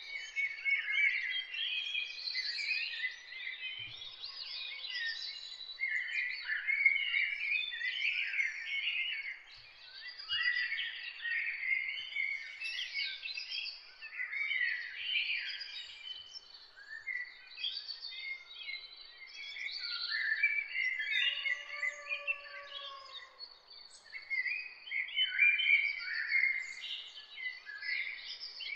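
Many birds chirping and twittering, with dense overlapping high calls and a lower drawn-out whistle about 22 seconds in.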